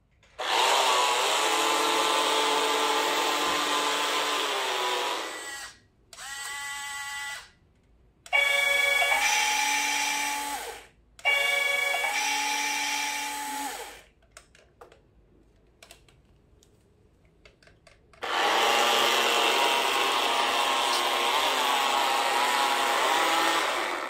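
Small electric drive motor and gears of a 1/32 radio-control Isuzu Erga model bus whining as it drives across a hard floor. It comes in several runs of a few seconds each that start and stop abruptly, the longest near the start and near the end.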